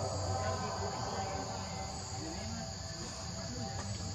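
Steady, continuous high-pitched insect chorus, with a low rumble underneath.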